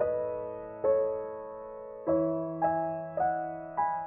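Background piano music: slow notes and chords, each struck and left to fade, a new one coming about every half second to second.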